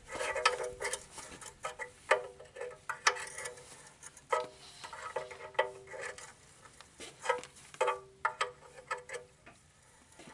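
Hand wrench clinking against steel while it is worked on an oil drain plug: irregular sharp metallic clinks about once a second, each with a short ring.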